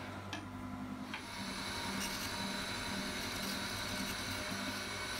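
Old surface grinder running with a steady hum, its wheel freshly balanced and dressed to a fine finish. A brief high hiss stops about a third of a second in.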